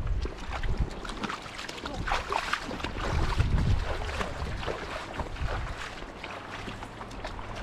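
Splashing of someone wading through shallow running water, with wind rumbling on the microphone.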